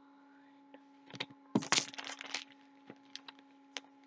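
Paper cross-stitch pattern booklet being handled and turned over in the hands: a burst of crackling and rustling about a second and a half in, then scattered light clicks.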